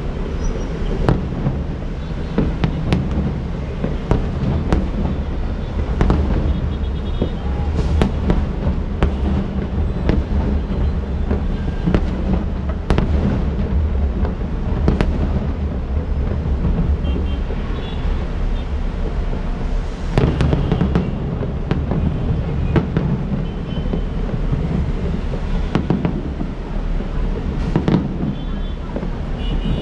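Fireworks display: a continuing succession of bangs and crackles from bursting shells over a constant low rumble.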